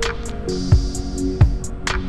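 Background music with a steady drum beat under sustained melodic notes.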